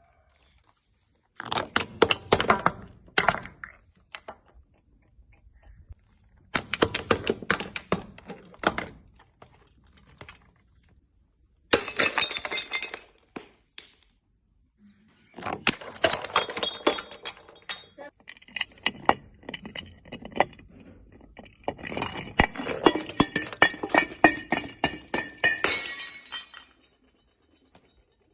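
Glass bottles being broken and crushed: several bouts of dense cracking and crunching with clinking shards, separated by short pauses, the later bouts carrying a ringing glassy tone.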